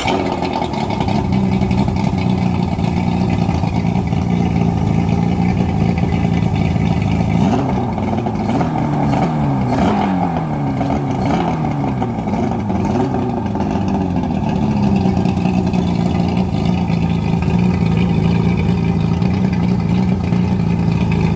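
An engine running steadily, revved up and down several times in the middle.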